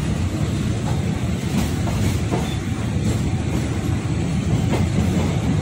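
Diesel-hauled local passenger train running along the line: a steady low rumble with a few faint clicks of the wheels passing over rail joints.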